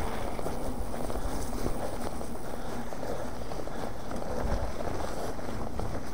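Mountain bike riding over a rough trail: tyres rumbling, the bike rattling, and wind buffeting the action camera's microphone.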